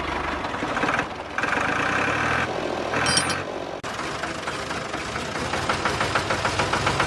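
Small motor of a DIY model thresher running, with a fast even rattle through the second half.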